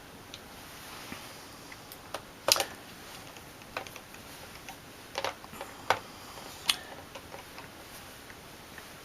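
A hard drive and its metal drive caddy being handled and fitted together: a scattering of sharp clicks and light taps, the loudest about two and a half seconds in.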